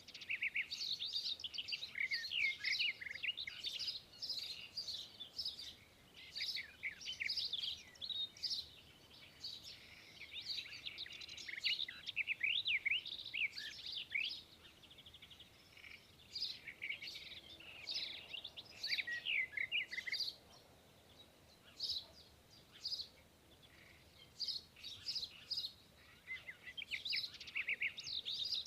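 Small birds chirping and twittering: many quick high chirps, in busy clusters broken by quieter stretches. The chirps thin out after about two-thirds of the way through.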